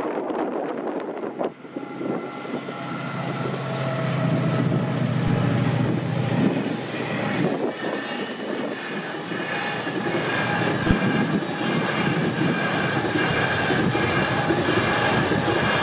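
A train running past on the line: a low engine note for the first few seconds, then a steady high whine of several tones over the rumble of the wheels, with a single knock about eleven seconds in.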